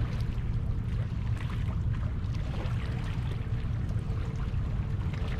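Wind rumbling on the microphone over the sound of water splashing and trickling.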